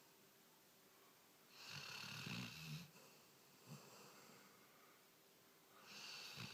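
Sleeping Labrador snoring: one snore of about a second starts a little under two seconds in, and the next begins near the end.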